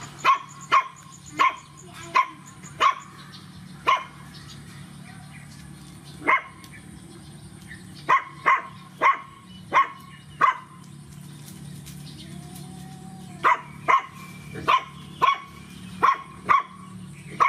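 A puppy yapping: short, sharp barks in quick runs of four to six, with pauses of a second or two between runs.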